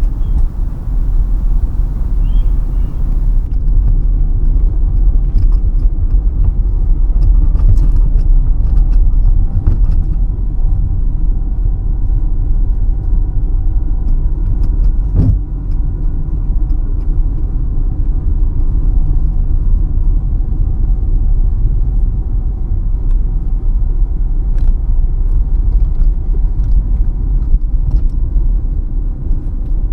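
Steady low rumble of a car's engine and tyres on the road, heard from inside the cabin while driving. A faint hiss drops away about three seconds in, and a few faint ticks come through.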